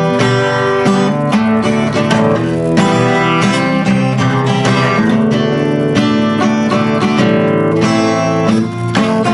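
Acoustic guitar strummed with no singing, chords ringing and changing every second or so.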